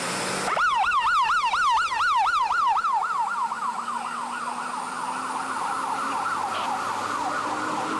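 Emergency vehicle siren on yelp, its pitch rising and falling rapidly about four times a second, starting about half a second in.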